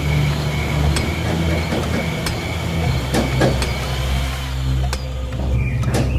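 Construction-work sound effects: a machine engine running steadily, with scattered sharp clicks and knocks throughout.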